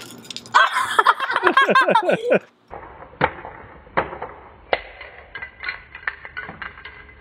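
A child squeals for about two seconds with a high, falling voice. Then comes a string of sharp taps, one or two a second: a hard plastic Smashers ball being knocked against concrete to crack it open.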